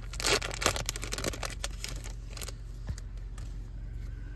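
A foil trading-card booster-pack wrapper crinkling as the cards are slid out and handled. The crackly rustling is dense for the first couple of seconds, then thins to scattered soft clicks of the cards being squared in the hand.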